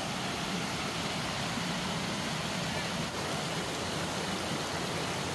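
Steady rush of a rocky mountain stream tumbling over boulders in small cascades.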